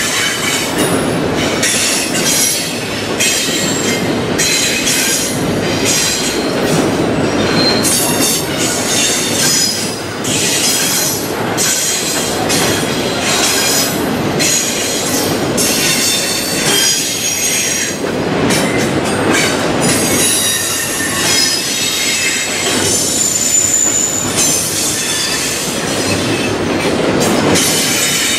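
Double-stack container train of well cars rolling past: a continuous rumble and rattle of the cars, with the steel wheels squealing in high, shifting tones throughout.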